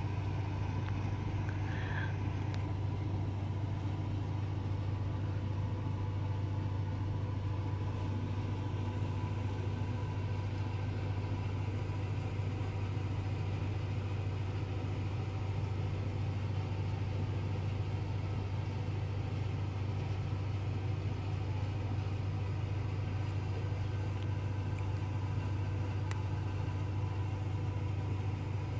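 A steady low mechanical hum that holds an even level throughout, with faint higher steady tones above it.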